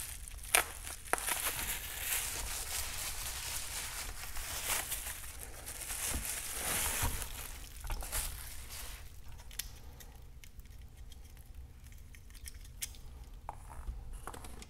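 Bubble wrap rustling and crinkling as a fog light is unwrapped from it, then quieter, with a few small clicks as the light and its wire are handled in the last several seconds.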